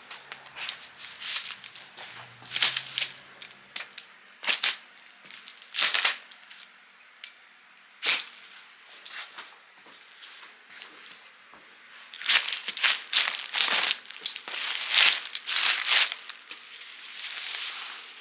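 A large cardboard shipping box and its plastic wrapping being cut and torn open: scattered ripping and crinkling strokes that come thick and fast for a few seconds about two thirds of the way in.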